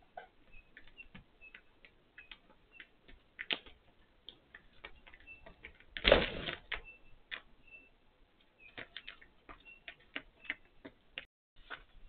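A rutting bighorn ram butting a garage door: one loud bang about six seconds in, lasting about half a second, among scattered light clicks.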